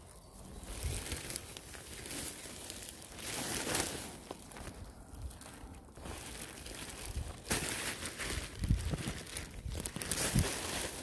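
Green plastic rubbish bag crinkling and rustling as it is carried, with footsteps on grass giving a few soft low thuds in the second half.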